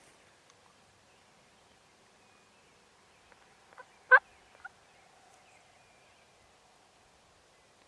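Wild turkey gobbler gobbling once, a short, loud call about four seconds in.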